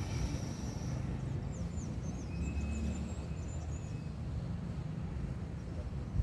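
Open-air building-site ambience: a steady low rumble, with a run of quick, high chirps from about one second in to about four and a half seconds in.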